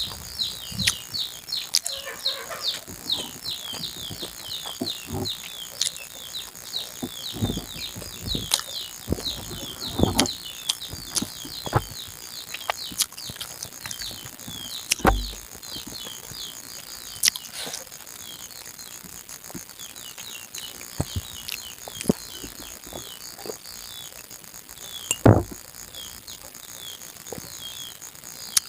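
Close-up eating sounds, short clicks, smacks and light knocks from chewing and handling food, over a steady background of rapid high chirping from small birds. A single louder knock comes near the end.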